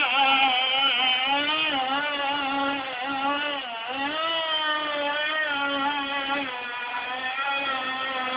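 Traxxas Nitro Vee RC boat's small nitro glow engine running at high revs, a continuous buzzing note that wavers up and down in pitch. It grows a little fainter after about three seconds.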